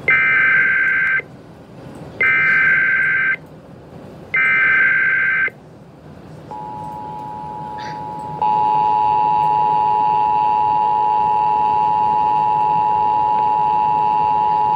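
Emergency Alert System header: three identical bursts of SAME data tones, each about a second long and a second apart. Then the EAS two-tone attention signal starts, faint at first and louder about eight seconds in, and holds a steady pitch.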